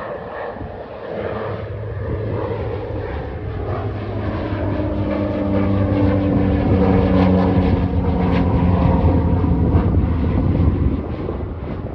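Cessna 208B Grand Caravan EX's single Pratt & Whitney PT6A-140 turboprop and propeller climbing out just after takeoff and passing overhead: a steady drone with low propeller tones. It grows louder toward the middle and drops off about a second before the end.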